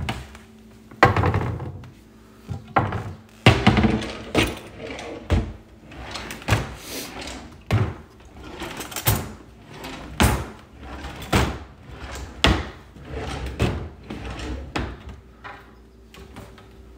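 Kitchen cabinet doors being opened and shut one after another: a string of wooden knocks and clacks, about one a second, that stop shortly before the end.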